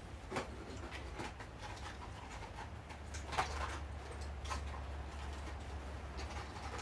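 Light clicks and rustles of cardboard medicine boxes and packets being handled and set into a plastic tray, over a steady low hum, with a slightly louder knock about three and a half seconds in.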